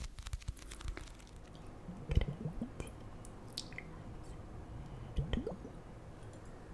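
Wet, squishy clicks with two louder drip-like plops rising in pitch, about two and five seconds in.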